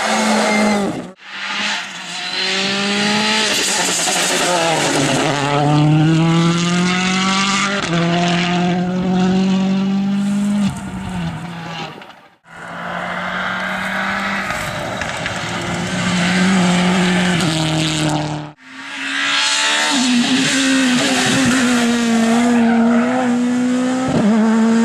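Rally cars at full speed on a special stage, one after another. Their four-cylinder engines rev hard, rising in pitch and dropping back with each gear change and lift. The sound breaks off briefly twice as one car gives way to the next.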